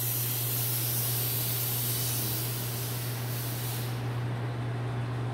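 Electric disinfectant fogging machine spraying: a loud hiss of spray over a steady low motor hum. The hiss cuts off about four seconds in while the hum keeps going.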